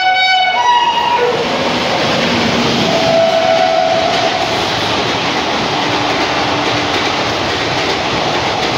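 Indian Railways express train running through a station platform at speed: a loud, steady rush of passing coaches and wheels, with the end of the locomotive's horn in the first second.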